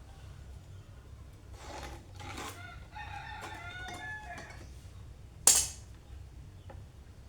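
A rooster crowing in the background, a drawn-out pitched call. A single sharp knock comes about five and a half seconds in and is the loudest sound.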